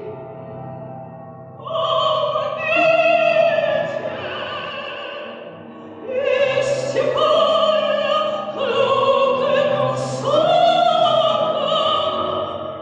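Operatic-style singing: long held notes with vibrato in two phrases over a low, steady accompaniment.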